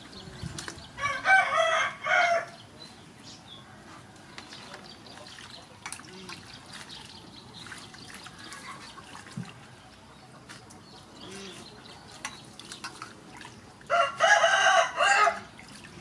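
A rooster crowing twice, once about a second in and again near the end. Between the crows, soft splashing of leafy vegetables being washed by hand in a steel bowl of water.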